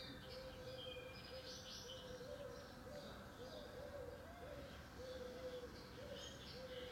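Faint birdsong: short, high chirps from small birds come and go over a steady low hum that wavers in places.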